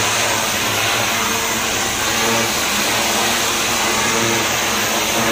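High-pressure blast nozzle hissing steadily as it strips barnacle crust from a ship's steel hull, with a steady engine hum underneath.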